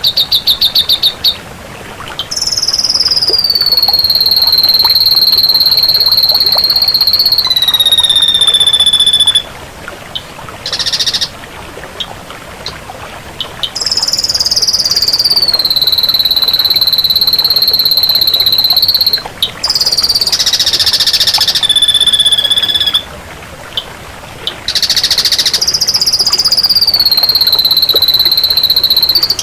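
Ashy drongo singing: long, held high whistles that slide slowly downward, alternating with fast rattling trills and short harsh rasping notes.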